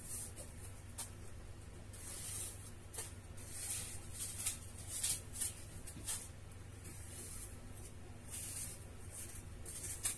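Apple being peeled with a small kitchen knife: short, scratchy strokes of the blade through the skin at an uneven pace, over a faint low steady hum.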